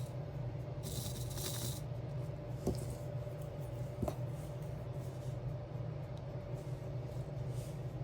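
Quiet handling sounds of diamond-art crafting: a brief rustling scrape about a second in, then two light taps, over a steady low hum.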